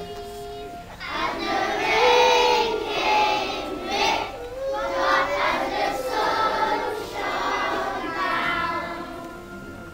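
A large group of children's voices singing together, loud and massed, starting about a second in and fading near the end.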